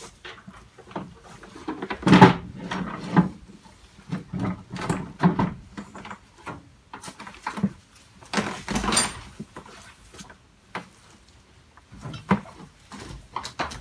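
Irregular knocks, clunks and clatter of tools and objects being handled and put away, loudest about two seconds in and again around nine seconds in.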